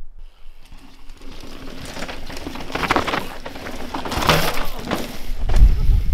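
Mountain bike tyres skidding and scrubbing through loose dirt as riders come down the trail and pass close by, loudest about three and four seconds in, with a low rumble near the end as a bike goes past.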